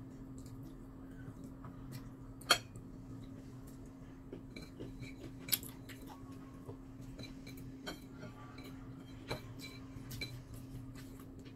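Quiet scattered clicks and taps of fingers and fingernails on a ceramic plate while rice grains are picked up by hand, with two sharper clicks about two and a half and five and a half seconds in, over a steady low hum.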